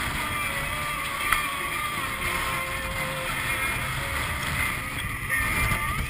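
A Swan 48 sailing yacht driving hard through rough water in force 7 wind: water rushing past the hull and wind noise, under a few faint steady high tones. One sharp knock comes about a second in.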